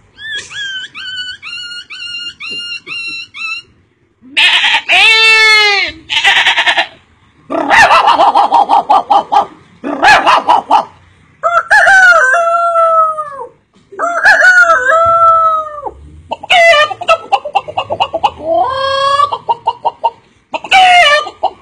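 A man imitating chickens with his voice: a quick run of short clucks, then a series of loud crows and squawks, several with a long falling pitch, broken by short pauses.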